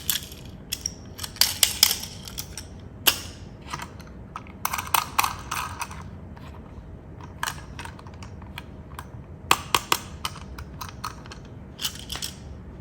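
Irregular sharp clicks and clatters of small hard objects knocking together, coming in short clusters a second or two apart.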